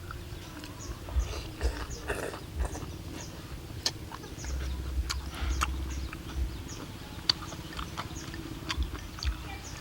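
A person eating curry noodles: chewing, with scattered sharp clicks and soft low thumps.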